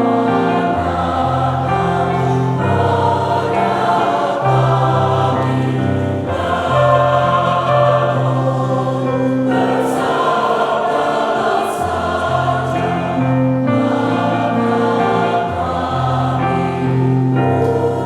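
Church choir singing an Indonesian hymn in parts, long held chords that change every second or two over steady low notes.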